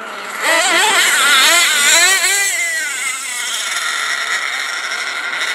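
High-revving nitro engine of a radio-controlled off-road racing truck, getting louder about half a second in, its pitch wavering quickly up and down with the throttle, then holding a steadier high note from about three seconds in.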